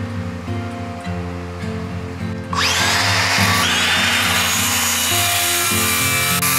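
Background music; about two and a half seconds in, a handheld circular saw starts and runs loudly over it, cutting wood.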